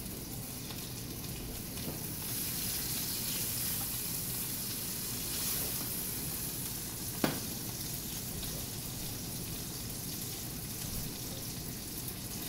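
Frozen Alaskan sockeye salmon fillet sizzling in olive oil in a frying pan: a steady frying hiss that grows a little louder about two seconds in. A single sharp knock comes about seven seconds in.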